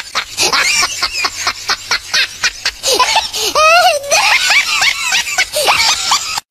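High-pitched giggling laughter in quick, repeated pulses, several a second, rising into a squealing stretch about three and a half seconds in, then cut off abruptly at the end.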